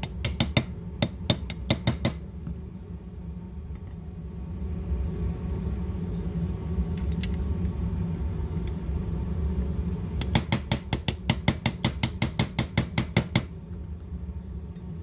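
Quick, even series of light metallic taps, a small hammer striking a punch to drive out the pin that holds the extractor in a Beretta 71 pistol slide. The tapping comes in two runs, one near the start and one about ten seconds in, over a steady low hum.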